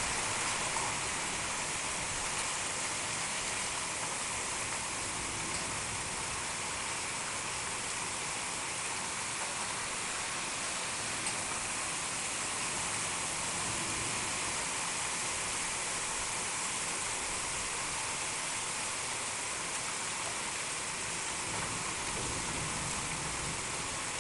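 Heavy rain falling steadily, a dense even hiss of downpour on pavement and roofs.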